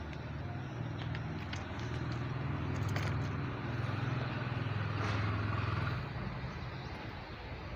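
A low engine hum that grows louder over a few seconds and drops back about six seconds in, with a few faint clicks.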